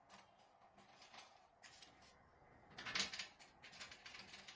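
Faint metal clicks and scrapes of a hex key tightening screws on a wood stove's side handle, with a louder short rattle about three seconds in.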